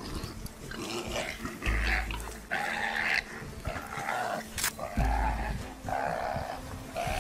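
Harsh animal cries, about six in a row, one roughly every second, from a big cat and a warthog locked in a fight.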